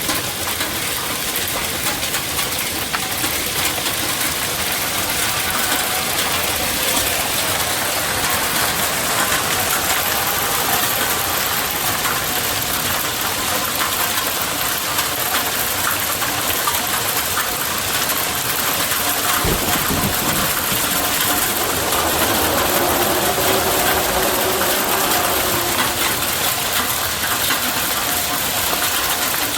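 Steady hiss of rain with a faint droning hum underneath, clearer about two-thirds of the way through, and a brief low thud about twenty seconds in.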